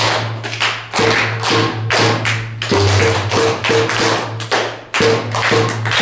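Wooden bass marimba playing a low, repeating bass line, its notes changing every second or two, with a class of children clapping along.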